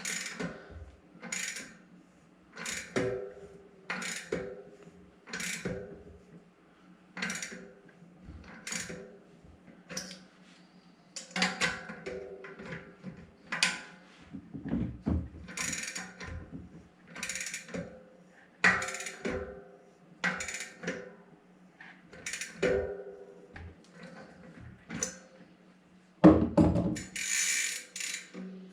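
Short bursts of metallic ratchet clicking, one every second or so, from work on a SRAM GX Eagle cassette on an XD driver body, with a longer, louder burst near the end.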